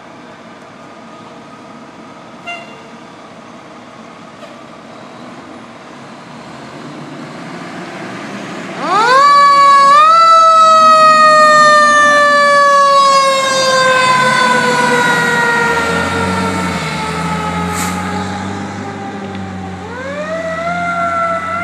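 Fire engine pulling out of its station bay: its engine runs steadily, then about nine seconds in the siren starts, climbing quickly in pitch and then falling slowly for about ten seconds before climbing again near the end, over the engine's rumble.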